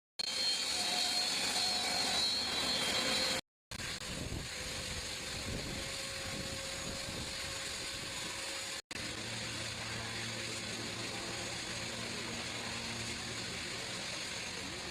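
Seaplane engine running steadily across three spliced clips, each ending in a brief cut to silence. The first, loudest clip carries a high whine; the last has a steady low hum.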